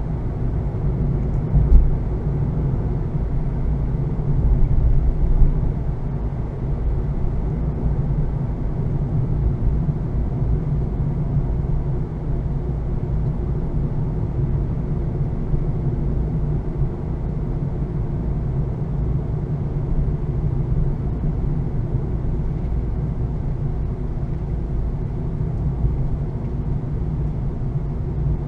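2020 Honda Fit's 1.5-litre four-cylinder engine and road noise while driving: a steady low rumble with the engine note holding level. A brief thump about two seconds in.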